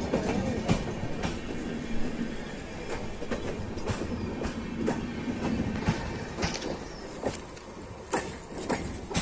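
Passenger train coaches rolling past at close range: a steady rumble of wheels on rail with sharp clicks as the wheels cross rail joints. The sound fades toward the end as the train moves away.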